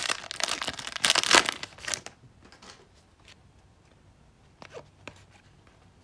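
Upper Deck hockey card pack wrapper being torn open and crinkling for about two seconds, then a few faint soft brushes of the cards being slid out and handled.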